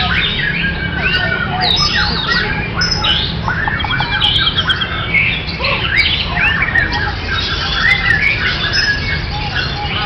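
White-rumped shamas (murai batu) in contest cages singing over one another: a dense, loud chorus of clear whistles, quick rising and falling glides and rattling trills, over a steady low background hum.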